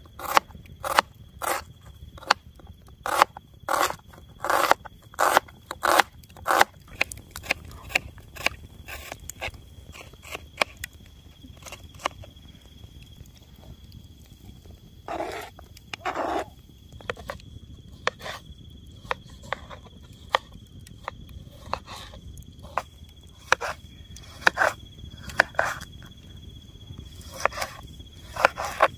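Knife chopping food on a cutting board: sharp taps about twice a second at first, then slower and more irregular. A steady high insect trill runs behind.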